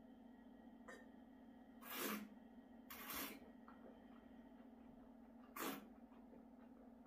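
Three short breathy puffs of breath from a wine taster with a mouthful of red wine, about two, three and five and a half seconds in, over a low steady hum.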